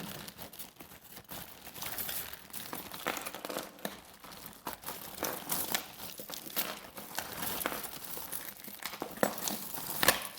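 A plastic bag crinkling and rustling as a tangled handful of costume jewelry is pulled out of it and worked loose, with irregular small clicks throughout and a couple of sharper ones near the end.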